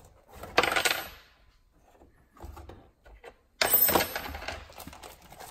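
Metal hand tools clattering on a wooden workbench: two sharp metallic clinks with a brief ringing, about half a second in and again about three and a half seconds in. The second is snap-ring pliers being set down beside a wrench.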